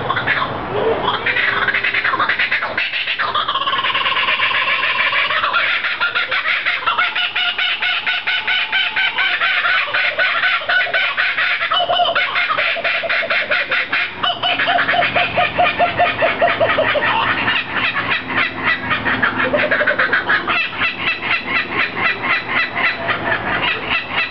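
Two laughing kookaburras calling together in a long, loud rolling laugh of rapid repeated notes that rise and fall, with a brief lull about halfway.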